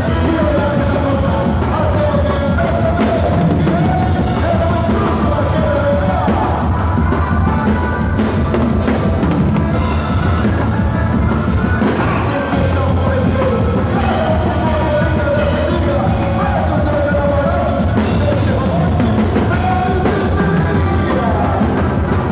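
Loud music with a steady drum-kit beat and a wavering melody line over it.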